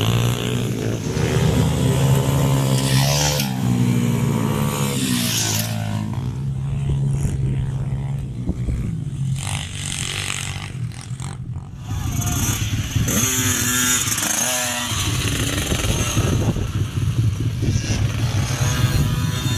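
Small dirt-bike engines on pit bikes and mini motocross bikes running and revving as they ride the track, the pitch rising and falling with the throttle.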